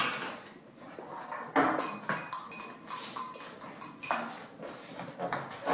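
Laboratory glassware and metal apparatus being handled and set down on a bench: a quick run of clinks and knocks with short high rings, starting about a second and a half in.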